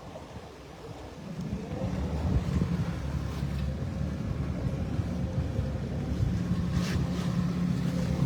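Small boat's engine running, picking up in level about a second in and then holding a steady low drone, with some wind on the microphone.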